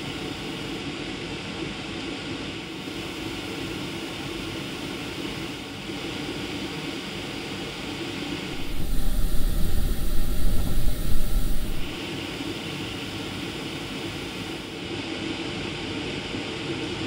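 Airbrush spraying paint onto small model-kit parts: a steady hiss of air and paint with a low hum under it, growing louder for about three seconds in the middle.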